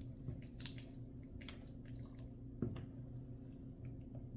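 Faint scattered clicks and rubbing of a 9-volt battery snap connector being lined up against the battery's terminals, with one slightly sharper click about two and a half seconds in, over a low steady hum.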